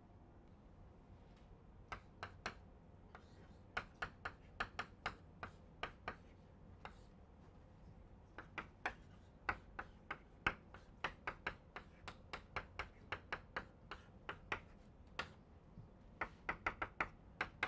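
Chalk tapping and clicking against a chalkboard as equations are written: many short, sharp taps in irregular runs, starting about two seconds in, with a brief pause partway through.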